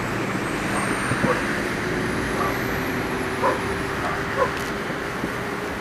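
Steady rumble of distant city traffic at night, with a dog barking a few times about a second apart.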